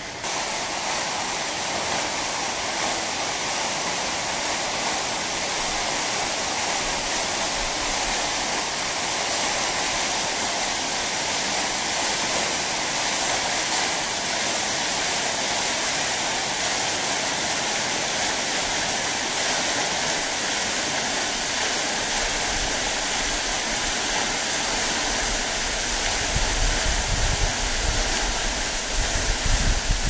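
Waterfall rushing, a steady dense roar of falling water, with irregular low rumbles in the last several seconds.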